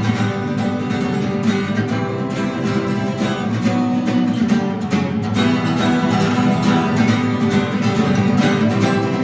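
Acoustic guitar strummed in an instrumental break of a song, with steady chords and no voice.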